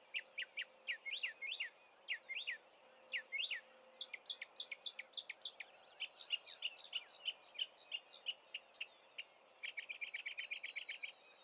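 Northern mockingbird singing: a long, varied run of chirps and whistled notes, each phrase repeated several times before it switches to another, with a fast trill near the end.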